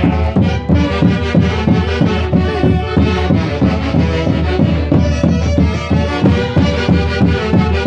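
Music from a Peruvian orchestra playing Santiago (Huancayo festival) music, with a steady driving beat.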